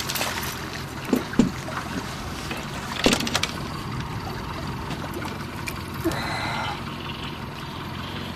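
A boat's motor running steadily at trolling speed, with water noise around the hull and a few brief knocks.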